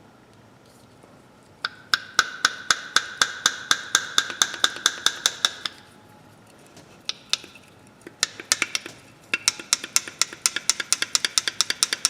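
Old steel pliers being snapped open and shut by hand, the jaws clicking together in quick, even runs of about five clicks a second with a short metallic ring; there are two runs with a pause between them. The pivot joint is rusty and stiff.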